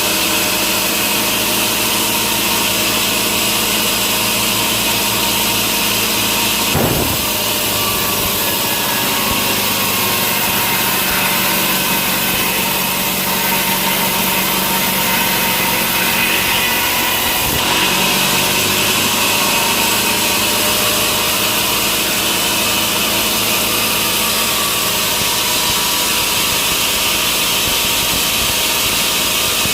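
Sawmill machinery running steadily: a powered saw cutting wood, with the drone of its motor. There are slight changes in the sound about a quarter of the way in and again just past halfway.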